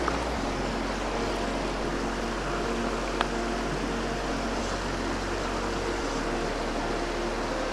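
A mountain creek running steadily, a constant rush of water, with a small click about three seconds in.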